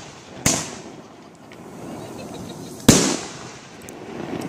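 Aerial fireworks bursting: two sharp bangs, about half a second in and just under three seconds in, each trailing off into a fading echo, with a third bang right at the end.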